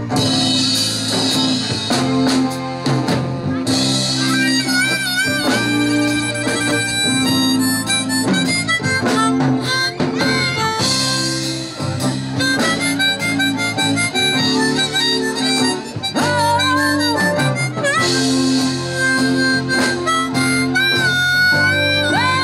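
Live band playing an instrumental break: a harmonica solo with bending, wavering notes over electric guitar, bass and drums.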